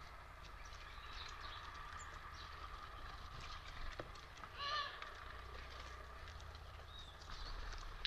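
Faint outdoor bird sounds: scattered small ticks and a few short high chirps, with one brief, louder pitched call a little past the middle.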